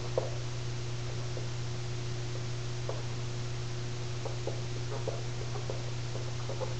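Dry-erase marker writing on a whiteboard: faint short squeaks and taps scattered throughout, over a steady low hum and hiss.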